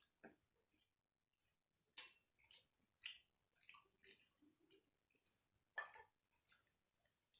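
Faint chewing and wet mouth smacks of someone eating rice and chicken, a run of short clicks about every half second.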